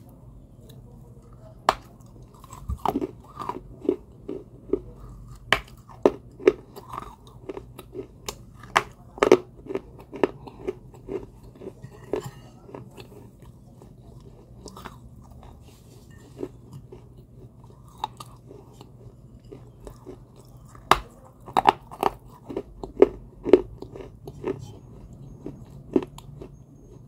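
Close-up biting and chewing of pieces of baked clay: sharp, dry crunches in quick clusters with softer chewing between, thinning out in the middle and picking up again about three quarters of the way through.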